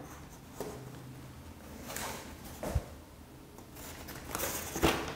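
Soft handling noises of a foam model airplane: a few light knocks and rustles as the foam wing is fitted onto the fuselage.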